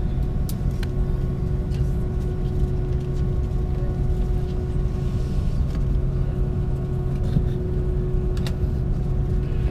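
Steady low rumble and hum inside the cabin of an Airbus A330-200 parked at the gate, with a faint steady whine over it. A few faint clicks, one near the start and one near the end.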